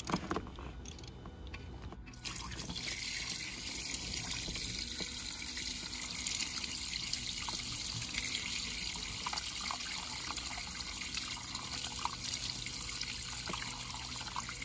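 Water draining from a boat engine block through an open drain-plug hole, a steady splashing trickle that starts about two seconds in. It is the water left in the block being emptied for winterizing.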